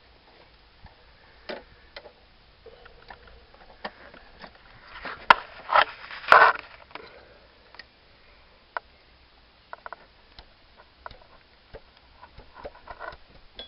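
Scattered clicks, knocks and scrapes of metal parts being handled as a replacement distributor is worked into its housing on a Mazda Bongo engine, greased so it slides in. The sounds are loudest in a short flurry of scraping about halfway through.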